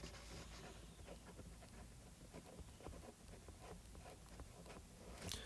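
Faint, light ticking and scratching of a stylus writing on a tablet's glass screen, a few soft taps a second.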